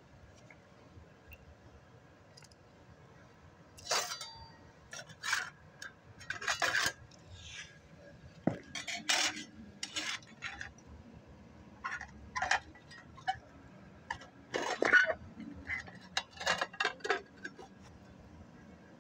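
A hard tool scraping and clinking against a concrete floor in short, irregular strokes. It starts about four seconds in and goes on at uneven intervals.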